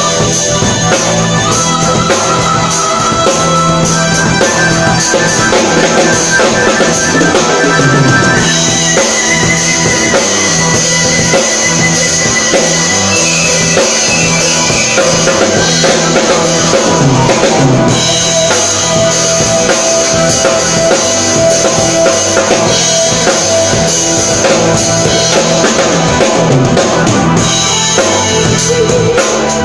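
Loud live drum kit solo, with kick drum, snare and rimshots played continuously, over long held pitched notes.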